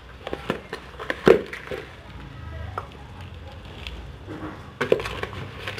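Hand trowel scooping potting soil and knocking against plastic flowerpots: a string of short scrapes and knocks, the loudest about a second in and another cluster near the end.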